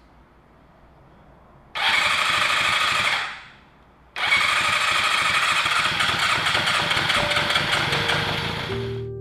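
Kawasaki Zephyr's air-cooled inline-four engine being started: a loud burst lasting about a second and a half, a short pause, then it starts again and runs for about five seconds before fading near the end.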